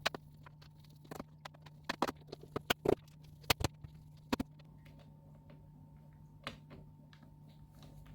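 Irregular sharp clicks and taps of small laptop parts and screws being handled as a new motherboard goes into a Dell Latitude 3520, busiest in the first four or five seconds, then sparse, over a faint steady hum.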